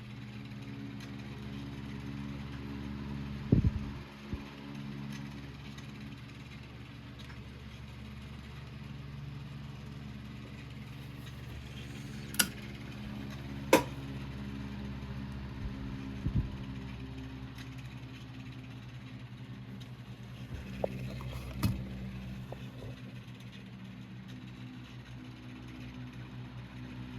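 Antique Diehl 12-inch oscillating table fan running: its cast-iron motor gives a steady hum along with the rush of the blades while the fan oscillates. A few sharp clicks break in now and then.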